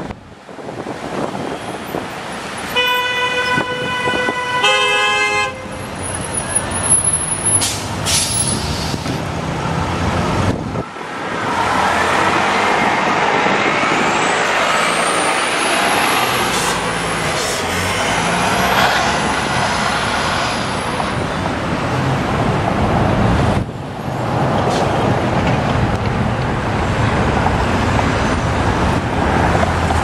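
Busy city traffic with two car horn honks about three and five seconds in, the first held for over a second. An Orion V diesel transit bus then passes close, its engine and a high whine rising and falling, before the sound drops back to steady traffic noise.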